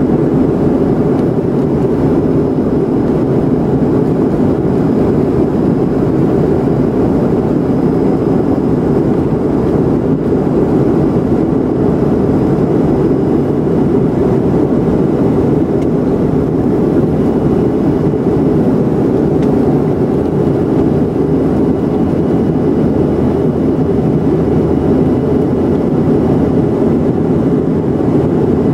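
Steady airliner cabin noise heard from a window seat in flight: a constant loud rush of engines and airflow, strongest low-to-mid, with faint steady whining tones above it.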